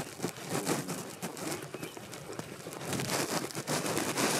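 Footsteps of several people walking: many quick, irregular scuffs and clicks.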